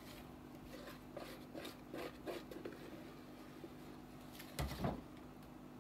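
Plastic spatula scraping cake batter out of a plastic mixing bowl: a series of soft scrapes, then one dull thump a little before the end, over a faint steady hum.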